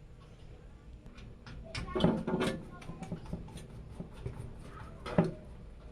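A few sharp clicks and knocks, as of objects being handled and set down, loudest about two seconds in and again near the end.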